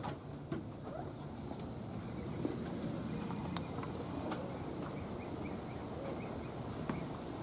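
Steady outdoor background noise with faint chirping and a few light clicks; about one and a half seconds in, two quick, loud high-pitched chirps.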